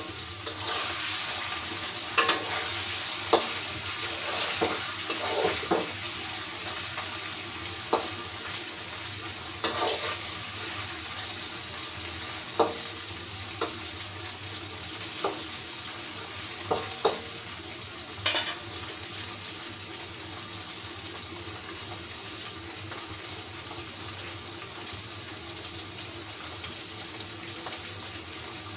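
Kitchen work: a steady hiss with about a dozen sharp clinks and knocks of utensils, spaced irregularly over the first twenty seconds.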